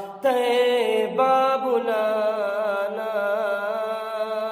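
A voice singing a naat's melody without words, holding long notes with a slight waver, after a brief break just after the start.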